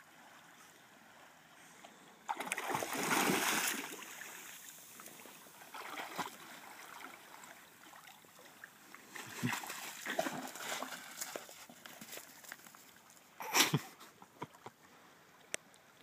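A dog wading and splashing through shallow water among rocks, in uneven bursts: the longest and loudest about 2 to 4 seconds in, smaller ones after, and a short sharp splash near the end.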